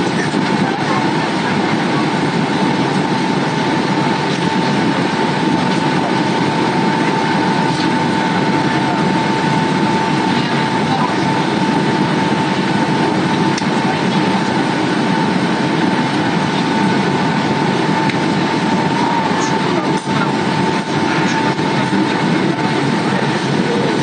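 Steady cabin noise of an airliner in flight, heard from inside by the window: an even rush of air and engine noise with a steady high whine running through it.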